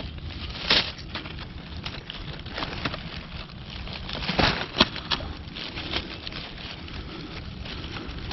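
Dry leaf litter and twigs rustling and crackling as a hand digs around and pulls up a yellow morel, with a few sharp snaps, the loudest a cluster about four and a half seconds in.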